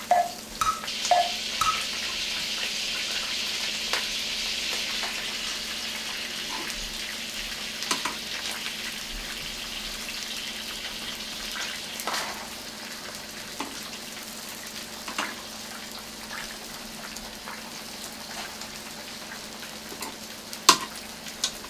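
Leftover spaghetti frying in melted butter in a wok: a steady sizzling hiss, strongest in the first few seconds and slowly easing, with a few sharp clinks and taps of utensils against the pans.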